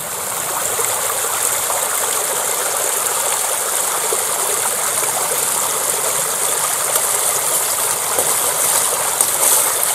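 Shallow river water rushing steadily over stones and through a gold-prospecting sluice box.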